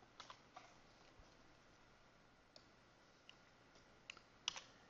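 Faint, scattered clicks of a computer keyboard and mouse, a few single clicks with a louder double click about four and a half seconds in.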